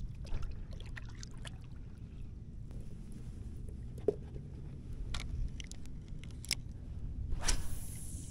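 Knocks and clicks of a paddle being laid on a paddleboard deck and a spinning rod being picked up, over a steady low rumble. Near the end, a short hiss as the rod is cast.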